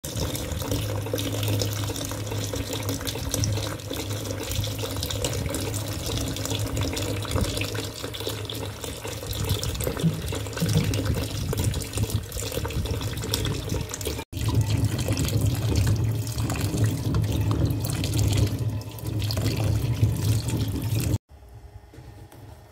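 Tap water running and splashing steadily onto calamansi fruit in a basin as they are washed, with a momentary break midway. It cuts off about a second before the end.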